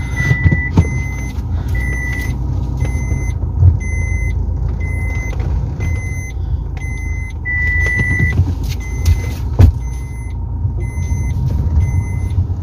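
A car's reversing parking sensor beeps about twice a second, stretching into a longer tone around eight seconds in as the car backs close to an obstacle. Under it runs the low rumble of the engine and tyres heard inside the cabin, with a couple of knocks.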